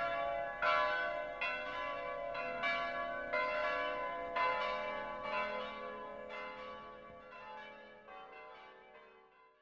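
Bells ringing in a slow run of struck notes, each ringing on into the next, dying away near the end.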